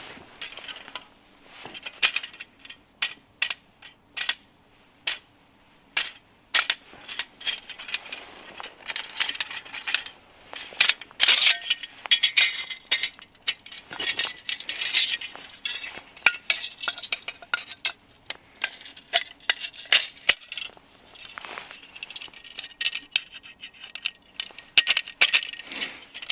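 Metal parts of a folding bow saw clinking and clicking as it is assembled, the frame tubes and blade knocking together. Irregular sharp clicks throughout, thickening into runs of rattling clinks around the middle and near the end.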